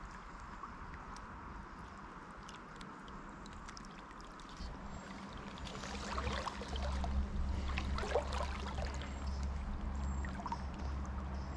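River water flowing and rippling as a steady rushing. A low rumble joins about four and a half seconds in and makes it louder.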